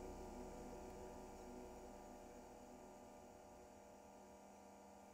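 Faint, steady electronic drone made of several held tones, slowly fading out toward near silence.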